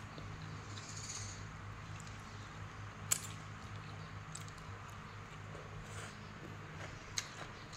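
A person eating soft khanom jeen rice noodles with cucumber salad by hand, quietly slurping strands in and chewing. There are brief sharp wet clicks about three seconds in and near the end.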